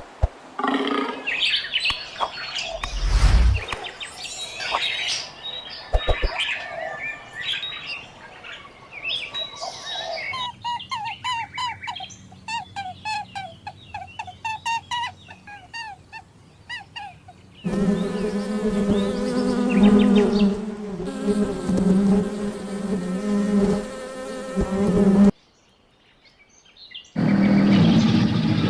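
A run of different animal sounds cut one after another: first a mix of calls, then a fast series of short repeated chirps, then a long steady pitched call or tone, a brief break near the end, and another sound after it.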